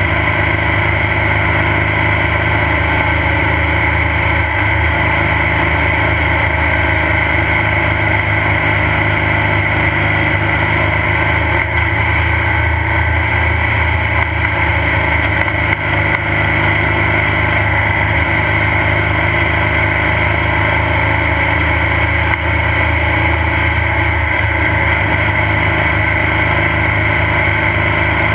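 Off-road race car engine running steadily at a constant pitch, with no clear revving.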